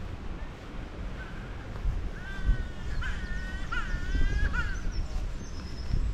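Wind rumbling on the microphone, with a bird giving a run of about four loud, drawn-out calls in the middle, crow-like, and a thin high whistle near the end.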